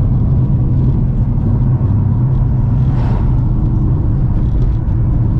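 Car engine and tyre noise heard from inside the moving car's cabin: a steady low hum, with a brief swell of hiss about three seconds in.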